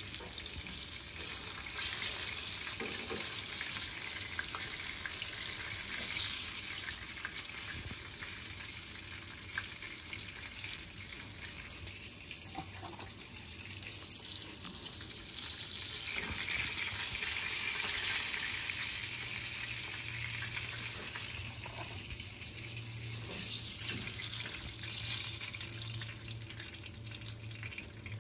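Battered dolphin fish pieces sizzling in hot oil in a frying pan: a steady crackling hiss, with a few light clicks from metal tongs.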